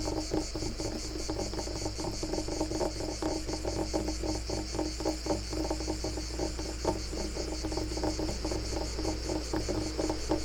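Wood being scratched in quick, irregular strokes, with crickets chirping steadily behind it.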